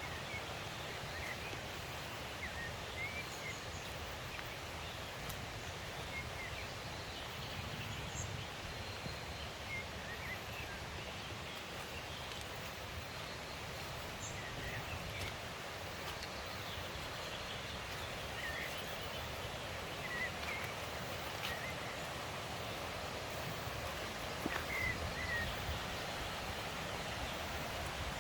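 Steady rush of a forest stream, with short high bird chirps every few seconds.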